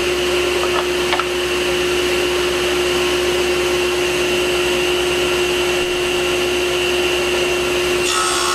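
Table saw running at a steady speed with a constant whine. A couple of light knocks come about a second in.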